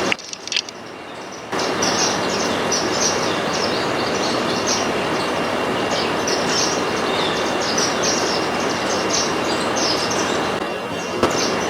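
A flock of Indian silverbills (white-throated munias) twittering: many short, high chirps in quick succession over a steady, loud background noise. The background noise drops away for the first second and a half.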